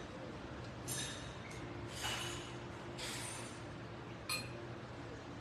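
Cutlery on dishes during a meal: a metal fork clinks sharply on a ceramic bowl twice, about a second in and again near the end. Between the clinks come a few short, soft sounds of eating.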